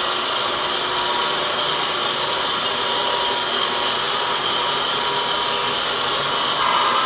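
Sound-equipped HO scale diesel locomotives running, the LokSound decoder's diesel engine sound playing through the model's small speaker: a steady mechanical hum with a few held tones, growing a little louder near the end.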